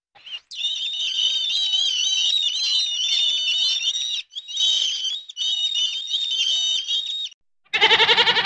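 A flock of gulls calling: shrill, overlapping cries with two short breaks. Near the end a goat gives a loud bleat.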